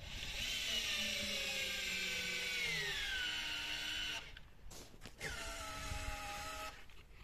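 Cordless drill turning a heavy-duty scissor jack's drive screw under a 4.5-ton tractor; its motor whine sinks in pitch as it bogs down under the load, cuts out about four seconds in, starts again about a second later and cuts out once more near the end: the drill struggling and tripping on overload.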